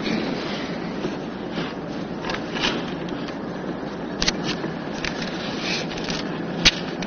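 Steady road noise inside a car's cabin, with a few short clicks and rustles over it, the sharpest near the end.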